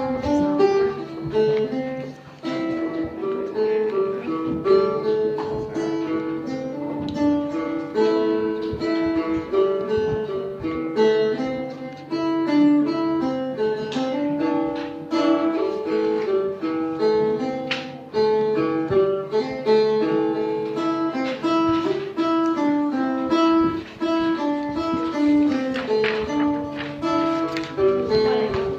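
Phin, the Isan plucked lute, playing a quick, busy melody of plucked notes over a steady low drone.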